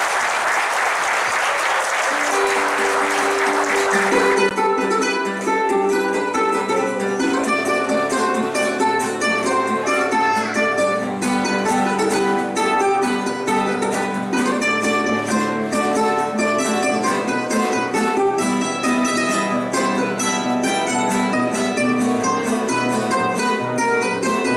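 Applause dying away as a string ensemble starts up. A held note comes in about two seconds in. About four seconds in, acoustic guitars and a small, high-pitched strummed string instrument begin playing a brisk plucked and strummed piece.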